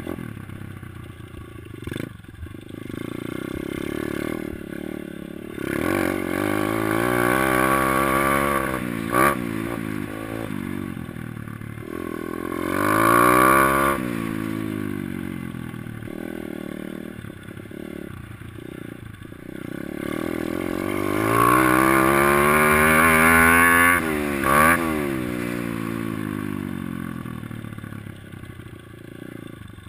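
Kawasaki KLX110L dirt bike's small single-cylinder four-stroke engine revving up and falling back again and again as it is ridden around a dirt track, heard from a helmet-mounted camera. A few sharp knocks break in along the way.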